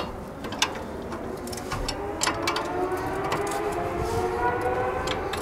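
A vehicle engine droning in the background, its pitch slowly rising over a few seconds, with scattered sharp metallic clicks from tools on the brake caliper as its bolts are tightened.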